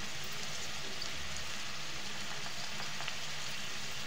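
Potato pieces frying in hot oil in a kadhai: a steady, even sizzle.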